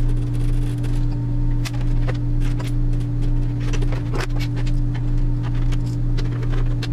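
Clicks and knocks of a plastic boombox case being handled and fitted back together, with scattered sharp taps throughout, over a steady low electrical hum.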